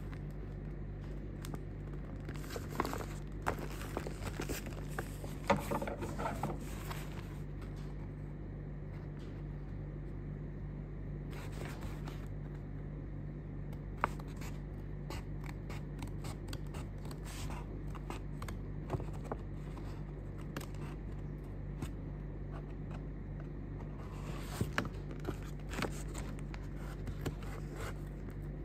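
Kraft-paper envelope being handled: paper rustling and scraping with small taps and clicks, in bursts early on, once near the middle and again near the end. A steady low hum runs underneath.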